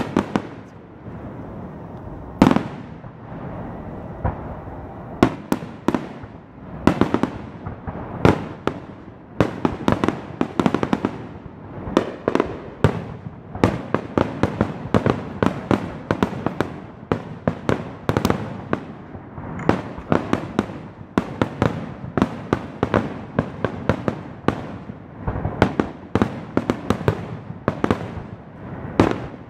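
Aerial fireworks shells bursting, a run of sharp bangs and crackle. The bangs are spaced out at first and come in quick succession from about a third of the way in.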